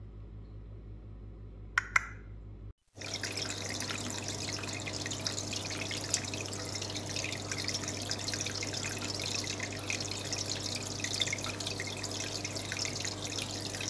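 Water trickling and splashing with many small drips, over a steady low hum. Before the water starts there is a faint hum with two sharp clicks about two seconds in, and then a brief cut to silence.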